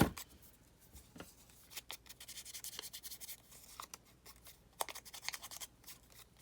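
Paper being handled and rubbed on a craft table, with a sharp knock at the start and runs of quick scratchy strokes about two to three seconds in and again near the end.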